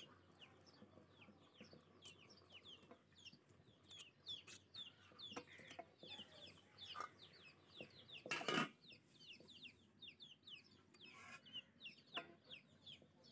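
Faint chickens cheeping steadily in the background, many short falling peeps. A fork scrapes lightly against the pan now and then, with one louder clatter a little past halfway.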